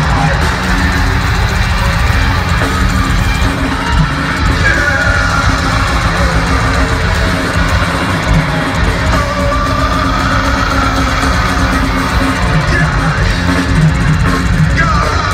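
Heavy metal band playing live, with distorted electric guitars, bass and a pounding drum kit, recorded from the crowd at a concert.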